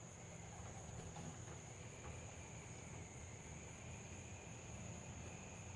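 Faint outdoor ambience: a steady, high-pitched insect drone, like crickets, over a low rumble.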